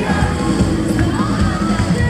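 Live band playing amplified worship music with strong bass, with crowd voices over it.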